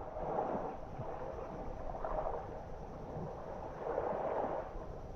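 Small waves washing on a shoreline, a soft rushing that swells about every two seconds.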